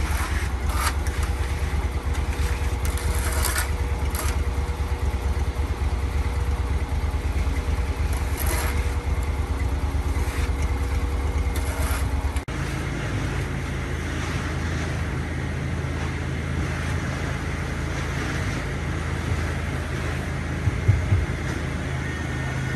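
An engine running steadily, with a few short knocks or scrapes in the first half. About halfway through, the sound cuts abruptly to a different, higher engine hum.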